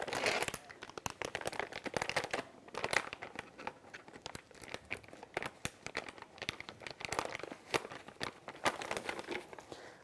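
Crinkling plastic with irregular light clicks and scrapes of a spoon and containers as powdered alum and starch are measured out.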